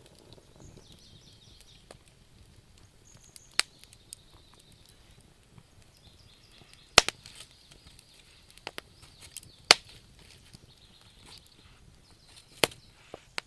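Wood fire crackling: scattered, irregular sharp pops from the burning logs, the loudest about halfway through and near the end, over a faint high hiss.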